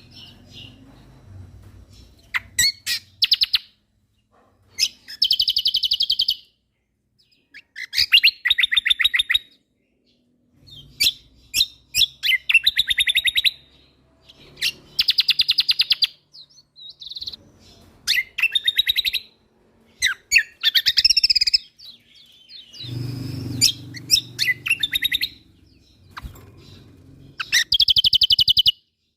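Kecial kombok (cucak kombo) songbird singing in a rapid-fire 'tembakan' style: bursts of very fast, sharp repeated high notes, each burst about a second long, separated by short pauses.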